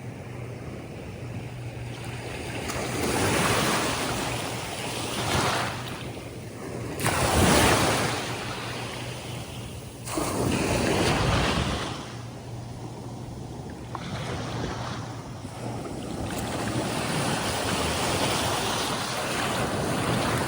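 Atlantic surf breaking and washing up a sandy beach, a rushing noise that swells and falls every few seconds, with the biggest break about seven seconds in.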